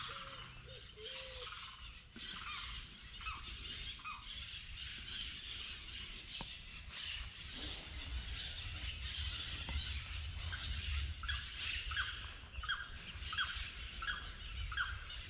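Birds calling and chirping in the open, with short calls scattered throughout; in the last few seconds one bird repeats a short falling chirp about twice a second. A low rumble runs underneath.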